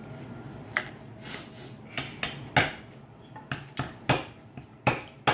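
Lobster shells being cracked open at the table: a series of about nine sharp cracks and knocks, spaced irregularly at first and coming faster near the end.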